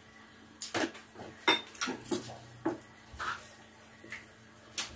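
Cutlery clinking against ceramic plates and a bowl while eating: a run of short, separate clicks, one with a brief ringing ping about a second and a half in.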